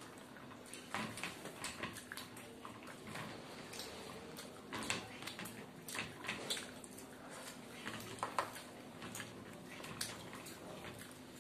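Wet chewing and lip smacks of two people eating luchi and potato curry with their fingers, with soft squishes as their fingers tear bread in the gravy. Short irregular smacks and clicks, a few louder ones around the middle.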